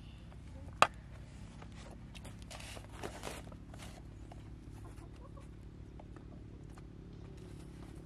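Small handling sounds of a glass jar being shaken over a steel bowl of flour: light clicks and brief rustles of powder, with one sharp click about a second in, over a faint steady low hum.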